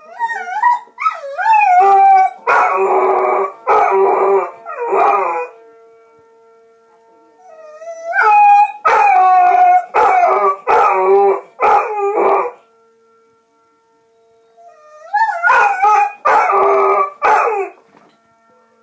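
Golden retriever howling in three long bouts, each opening with a wavering, rising howl that breaks into a run of short howled notes. It is answering a tornado siren, which sounds as a faint steady tone underneath.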